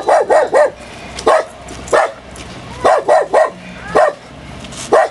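A dog barking repeatedly: about a dozen loud, short barks in uneven bursts, four in quick succession at the start, then spaced out with a few close pairs.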